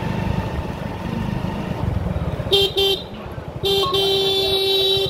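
Motorcycle engine running at riding speed with a low, steady rumble, and a horn honking: two short beeps about two and a half seconds in, then a long steady blast about a second later.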